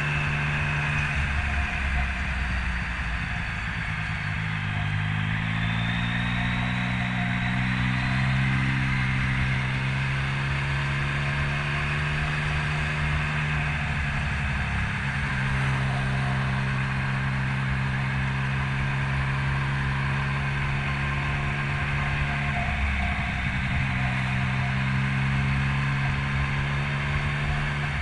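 Motorcycle engine running under way, its pitch climbing over the first several seconds and then holding steady, with two brief dips, about halfway and near the end, as the throttle eases, over a steady rushing noise of wind and road.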